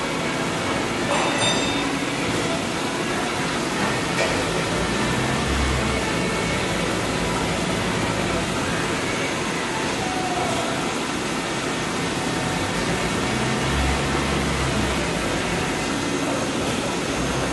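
Microcut Challenger BNC 1840 CNC lathe running, a steady mechanical hum and hiss with a few faint steady whines, and two brief low rumbles about five and a half and fourteen seconds in.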